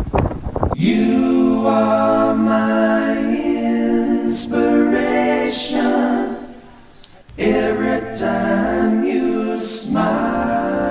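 Background music of several voices singing together in held notes, with little or no accompaniment. It fades almost out about six and a half seconds in and resumes about a second later.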